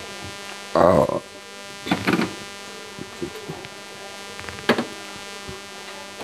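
A steady electrical hum, like a small motor running, with short louder sounds about one and two seconds in and a sharp click near five seconds.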